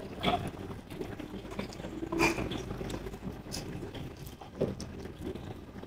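Someone eating: soft, scattered clicks and small rustling sounds of food and utensils, with a few sharper clicks here and there.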